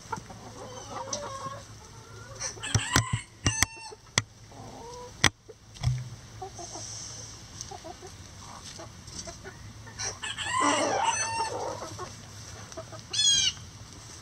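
Backyard hens and roosters clucking, with a rooster crowing about ten seconds in. A few sharp taps close to the microphone come around three to five seconds in, and a quick run of high chirps near the end.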